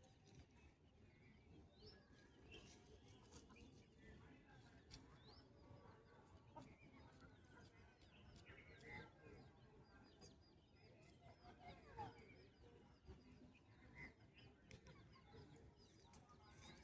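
Faint bird calls and short chirps, scattered at irregular moments over a quiet outdoor background.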